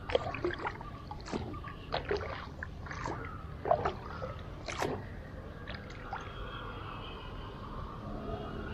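Wooden canoe paddle dipping and working in calm water: irregular splashes and drips, busiest over the first five seconds, then quieter water sounds.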